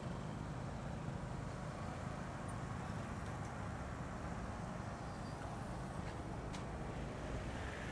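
Boda boda motorcycle riding along at steady speed: an even engine and road rumble with wind noise.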